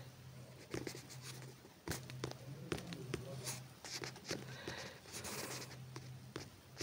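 Quiet room with a low steady hum, broken by scattered small clicks and faint rustles.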